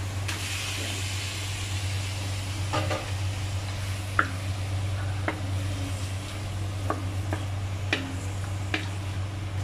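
Marinated chicken pieces tipped into a hot stainless-steel pan of sautéed onion and garlic set off a sizzle. Then a wooden spatula stirs and knocks against the pan with scattered sharp clicks. A steady low hum runs underneath.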